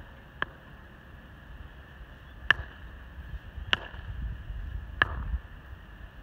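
Hammer driving a surveyor's peg into turf: one light tap, then three hard, sharp blows about a second and a quarter apart.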